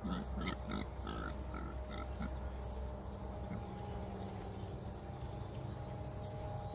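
Pigs grunting: a quick run of short grunts, about three a second, over the first two seconds or so. Underneath is a steady faint hum.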